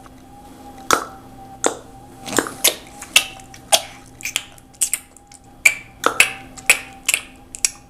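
An irregular series of sharp clicks or taps, roughly two a second, over a faint steady hum.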